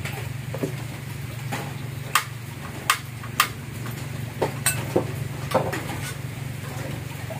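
Metal spoon knocking and clinking against a stainless pan of coconut water on a portable gas stove: a handful of sharp clinks, the loudest about two to three and a half seconds in, over a steady low hum.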